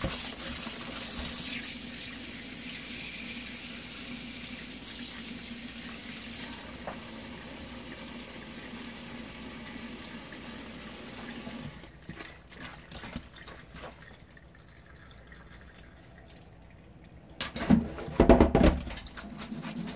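Kitchen tap running steadily into a sink, shut off a little over halfway through. Then a few scattered knocks and clatters, the loudest near the end.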